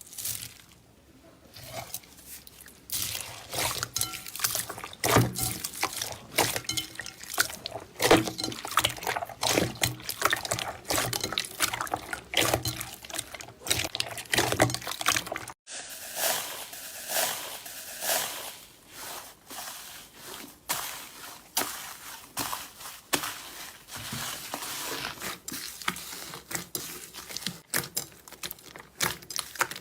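Slime being squished and stretched by hand, making a dense run of wet clicks, pops and crackles, with a brief break about halfway.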